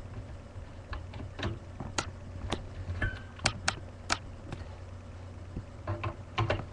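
Irregular sharp clicks and ticks, about one every half second, as a screwdriver turns out the long screws holding a desktop computer's CPU cooler.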